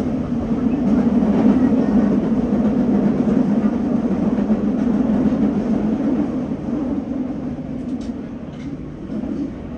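Nagoya Municipal Subway 5050-series train running through a tunnel, heard from behind the driver's cab: a steady low rumble of wheels and motors that grows quieter over the last few seconds.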